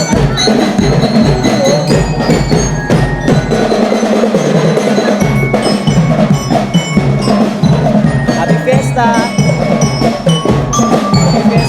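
Music with drums and bright, bell-like mallet-percussion notes, playing steadily.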